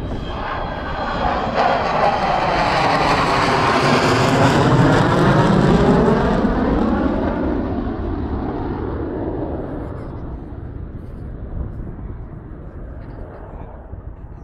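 Avro Vulcan XH558's four Rolls-Royce Olympus turbojets during a low flypast. The jet noise builds to its loudest about five seconds in, with sweeping shifts in tone as the bomber passes, then fades as it moves away.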